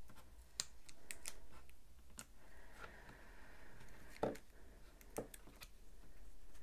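Craft knife cutting a sticker on a planner page: small scratches and clicks of the blade on paper, with a short scraping stroke about three seconds in.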